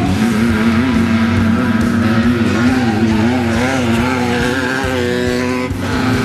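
Off-road race buggy engine running hard at high revs, its pitch wavering up and down about twice a second as the throttle and wheel speed change.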